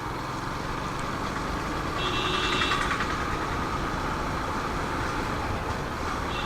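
Motorcycle running at road speed, its engine mixed with steady wind and road noise. A brief high-pitched tone sounds about two seconds in and lasts about a second.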